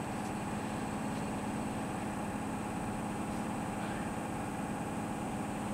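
Two ÖBB electric locomotives at the head of a passenger train, giving a steady hum with a few held tones.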